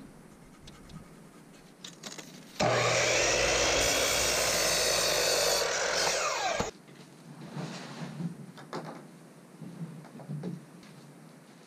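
Electric compound miter saw running and cutting through a 2x4 board for about four seconds, starting about two and a half seconds in and stopping suddenly. Before and after, light knocks from handling the wood.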